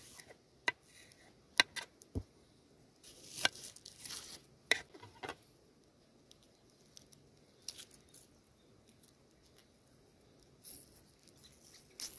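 Papery dry skin of a white onion crackling and tearing as it is peeled off with fingers and a kitchen knife, loudest a few seconds in. A few sharp clicks and one dull knock of the knife on the wooden cutting board come before it, with quieter rustles and ticks after.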